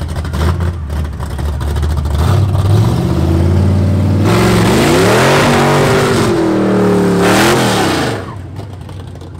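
Big-block 454 Chevy V8 with a long-duration camshaft idling lopey and uneven, then revved up hard about two seconds in and held at high revs for several seconds, its pitch rising and falling, before dropping off and fading near the end.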